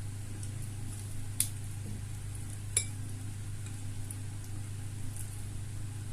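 Two sharp clinks of tableware, about a second and a half apart, the second ringing briefly, over a steady low hum.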